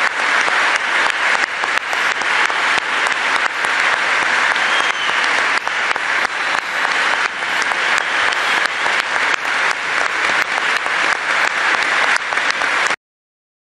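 Large audience applauding steadily in a big hall; the applause cuts off suddenly near the end.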